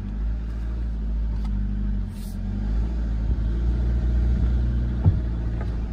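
Car engine running steadily, a low hum heard from inside the cabin, with a single light knock about five seconds in.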